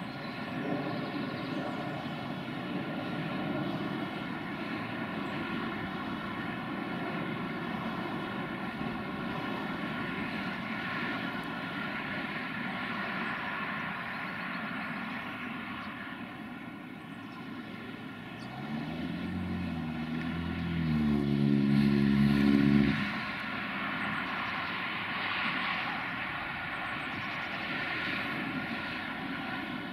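GNR(I) V class 4-4-0 compound steam locomotive No.85 'Merlin' approaching under steam with a steady rumble. About two-thirds of the way through, its whistle sounds for about four seconds, rising in pitch as it opens, then cuts off suddenly.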